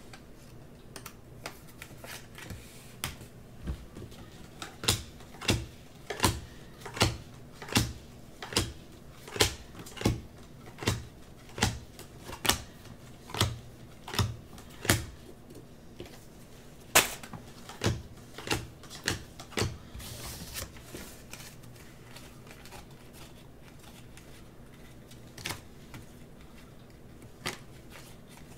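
Trading cards being handled and snapped down one at a time, a sharp click about every 0.8 s for some seventeen seconds, then two more scattered clicks near the end.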